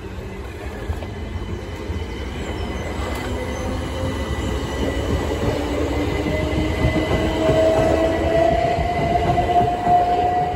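Southern Class 377 Electrostar electric multiple unit pulling away and passing close by, with a steady rumble of wheels on rail. Its traction whine rises in pitch as it gathers speed, and the sound grows louder toward the end.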